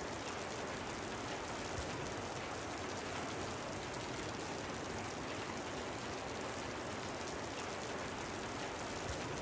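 Steady hiss of rain in a storm, even and unchanging throughout.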